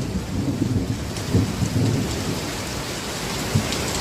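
Heavy hailstorm downpour with strong wind: a steady hiss of rain and hail, with uneven low rumbles through the first two seconds and a brief low thump near the end.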